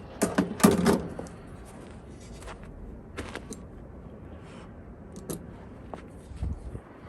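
Metallic clattering and scraping at the Ooni Fyra pizza oven as the pizza is flipped, loudest in the first second, followed by a few lighter knocks.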